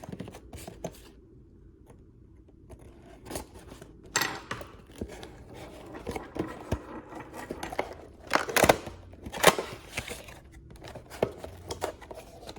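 A miniatures booster pack being opened by hand. Scattered small clicks and snips come first, then rustling and tearing of the packaging, with two louder rips a little past the middle.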